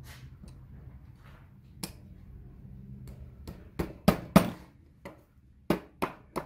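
Small hammer tapping a nail into a wooden table top: a few light taps at first, then a run of about eight sharper strikes in the second half.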